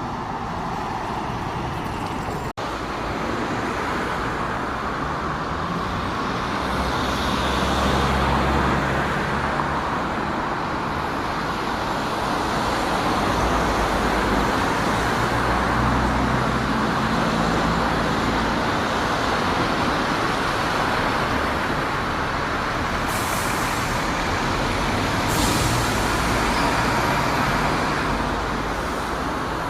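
Diesel bus engine running amid road traffic, with two short hisses of released air near the end.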